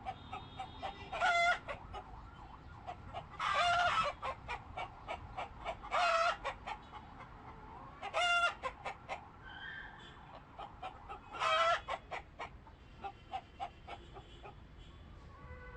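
Chickens clucking, with five loud, drawn-out squawks spaced a few seconds apart over a steady run of short clucks.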